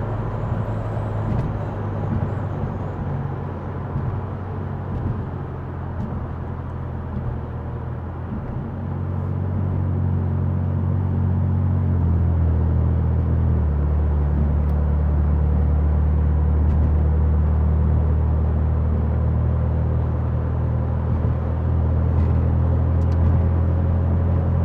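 Infiniti Q60's engine and road noise heard from inside the cabin while driving, a steady low drone. It grows louder about a third of the way in, then holds steady.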